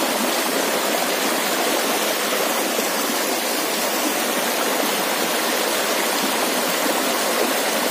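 Small forest waterfall pouring into a rocky stream pool: a steady, unbroken rush of water.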